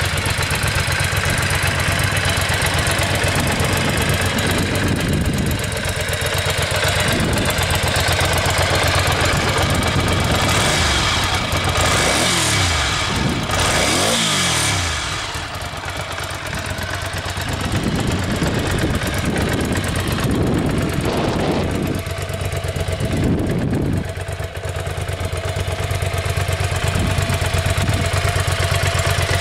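Ducati Monster 400's air-cooled L-twin engine idling through its stock exhaust, blipped up and back down several times in quick succession about a third of the way in.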